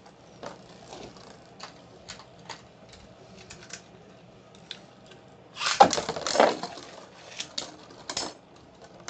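Plastic Beyblade Burst spinning tops spinning in a plastic stadium, giving scattered light clicks and ticks as they hit each other and the bowl walls. About six seconds in there is a louder clatter lasting under a second.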